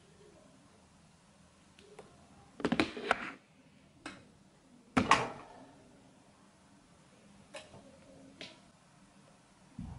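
Makeup items being handled and set down on a table: a quick cluster of clicks and taps about three seconds in, a sharper knock about five seconds in, then a couple of faint ticks.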